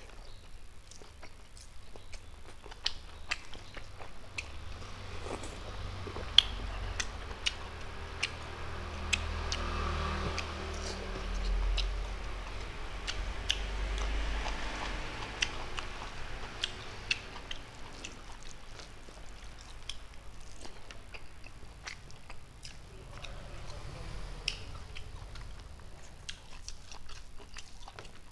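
Close-miked chewing of a mouthful of rice, with many small wet mouth clicks and lip smacks, as a person eats rice with his fingers. A low rumble swells in the middle stretch.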